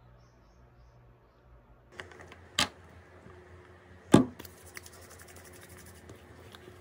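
Two sharp knocks or clicks about a second and a half apart, the second louder, followed by faint rapid ticking.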